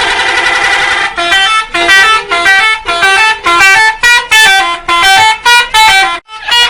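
Bus 'telolet' musical horn: a rapid warbling chord at first, then, about a second in, a run of short horn notes at changing pitches playing a tune, about two notes a second, with a brief break near the end.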